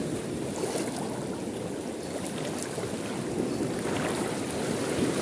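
Steady rushing and lapping of fast-flowing water at a river mouth swollen by the high tide.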